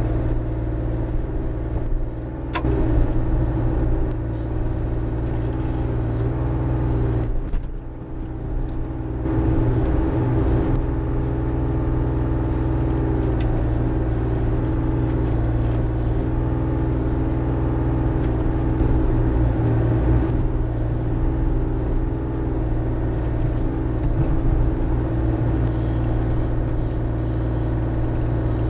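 Bobcat E35i mini excavator's diesel engine running steadily under load as the bucket digs out a tree, heard from the operator's seat. The engine note dips briefly about eight seconds in, then picks up again.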